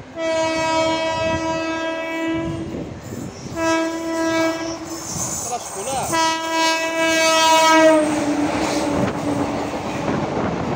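WAP4 electric locomotive sounding its air horn in three long blasts as it approaches, the last blast falling in pitch as the locomotive goes past. Then the loud rush and wheel clatter of ICF coaches passing at speed.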